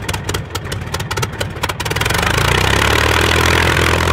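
A piston aircraft engine firing unevenly with rapid pops, then catching about two seconds in and running steadily.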